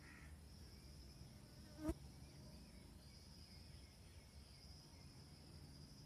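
Faint, steady, high-pitched insect trill in the background, with one sharp click about two seconds in.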